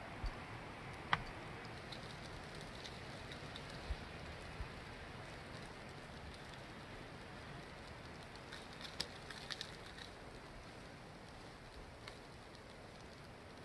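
Snowstorm sound: a faint, steady hiss of wind and falling precipitation, with scattered light ticks, the loudest about a second in.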